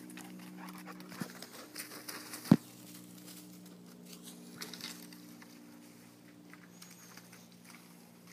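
Quick pattering footsteps on a dirt trail from a running Rhodesian Ridgeback puppy and the person following it, with one sharp knock about two and a half seconds in. A steady low hum runs underneath.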